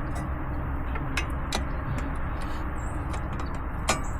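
A few scattered sharp metallic clicks of hand tools and parts during work on a car's front wheel hub assembly, one louder click near the end, over a steady low rumble.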